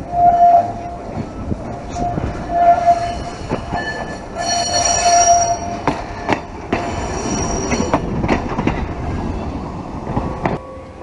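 Vintage CTA 'L' car's steel wheels squealing on and off as it rounds a tight curve, with sharp clicks from the wheels and rail joints.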